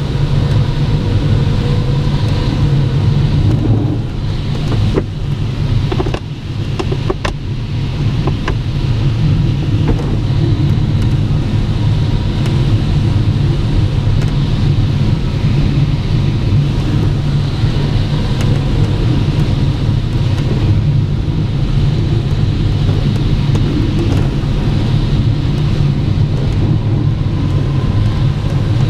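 Steady rush of airflow around a glider's canopy, heard from inside the cockpit on the landing approach, with a few short clicks and knocks about five to ten seconds in.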